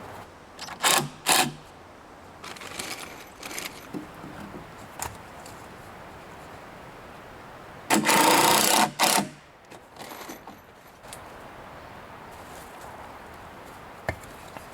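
Handheld power tool run in short bursts: two quick blips about a second in, then one longer run of about a second and a half midway, among softer handling noises of wood and tools.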